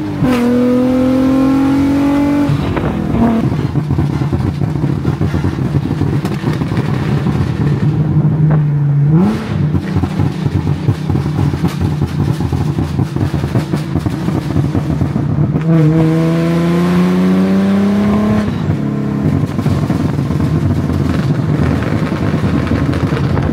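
Infiniti G37's 3.7-litre V6 breathing through long-tube headers and a Tomei exhaust, pulling up through the revs with a rising pitch near the start and again about two-thirds of the way through. In between, the exhaust note is rough and uneven, with a short rev rise about nine seconds in.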